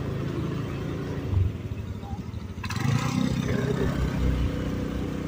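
Small automatic scooter engine running and revving unevenly on a rough trail, its note rising and falling, with a rush of hiss joining about two and a half seconds in.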